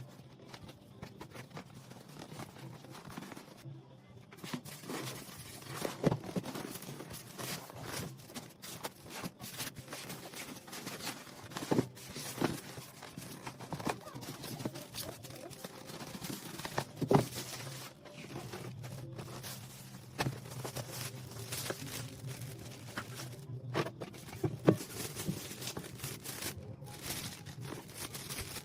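Plastic packaging crinkling and tearing, with scattered sharp knocks and clatters of things being handled.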